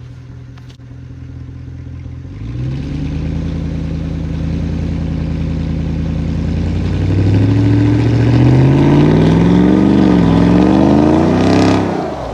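5.7-litre Hemi V8 of a 2005 Dodge Ram 1500 pickup under throttle. Engine speed climbs about two seconds in and again further on, wavers up and down, then drops off sharply near the end as the throttle closes.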